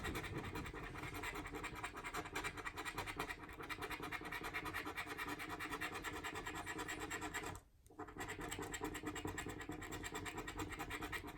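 A scratch-off lottery ticket being scratched in fast, repeated strokes as the coating is rubbed off the card. The scratching stops briefly about three-quarters of the way through, then goes on.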